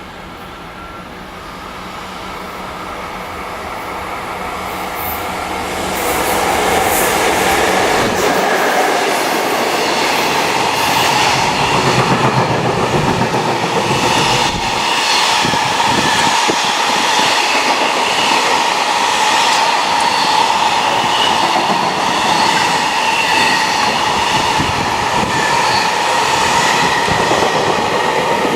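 Freight train hauled by a JR Freight EF66 electric locomotive running through a station without stopping. It approaches, growing louder over the first six seconds, then passes close with a steady rumble and clatter of wagon wheels over the rail joints.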